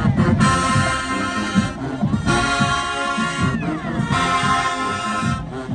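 HBCU marching band playing: the brass section blasts three loud held chords, each about a second long, over a steady drum beat, with a falling smear in pitch at the end of the second chord.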